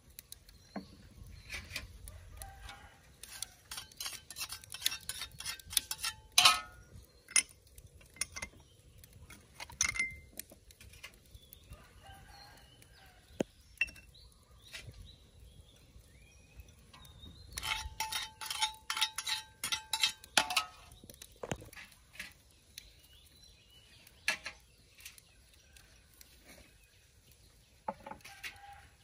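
Clinking of metal utensils and small bowls against a large steel wok while seasonings are added to raw chicken. The clinks come as quick taps in two busy runs, a few seconds in and again past the middle, with a brief metallic ring in the second run.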